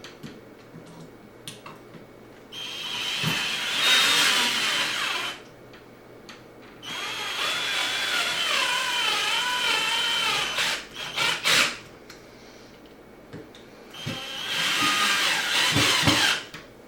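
Power drill with a Phillips bit driving screws in three separate runs, its motor pitch wavering under load during the middle run, with a few short clicks after it.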